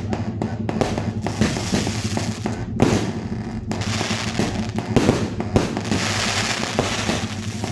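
A 36-shot consumer fireworks cake (Dragon Fireworks' Pearl of the Pacific) firing: a rapid run of shots and bursts, with a thick spell of crackling about halfway through, over a steady low hum.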